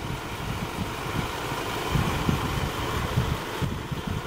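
Diesel engine of a Scania Enviro 400 double-decker bus running as the bus pulls away from the stop, a low uneven rumble with wind buffeting the microphone.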